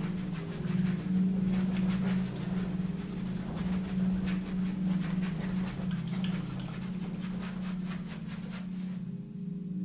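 A steady low humming drone with a row of overtones, swelling and fading slightly in strength, with faint scattered clicks and rustles over it.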